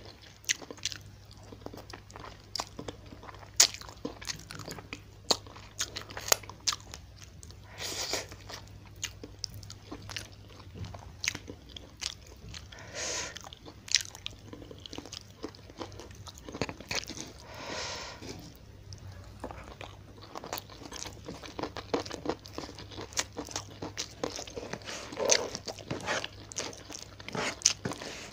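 Close-miked chewing of a fried tilapia meal with rice: many sharp crunches and wet mouth clicks at an irregular pace, with a few longer noisier chewing stretches.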